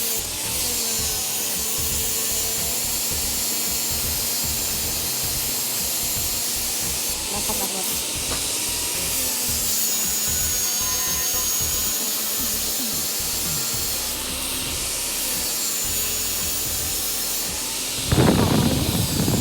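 A power tool grinding or sanding metal with a steady, loud rasping hiss, and a brief louder low rumble near the end.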